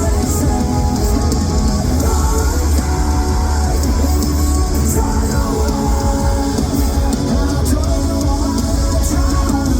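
Live metalcore band playing a loud, bass-heavy passage of distorted electric guitars and drums, recorded from the audience.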